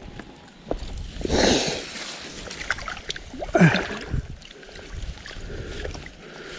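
Water splashing and sloshing in the shallows as a hand puts a caught black bass back into the pond water. There are two main splashes, about a second in and again a little past the middle.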